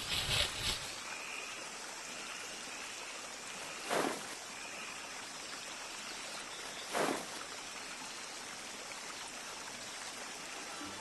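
Running stream water: a steady gentle flow with two short, louder swishes about three seconds apart, after a brief louder patch of noise at the very start.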